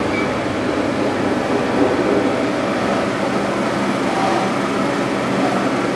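Steady whir and hum of a kitchen ventilation fan, even and unbroken.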